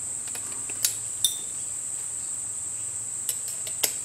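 A few light, sharp metallic clicks and tinks as pliers work a freshly notched stainless steel strip; one tink rings briefly. A steady high-pitched whine runs underneath.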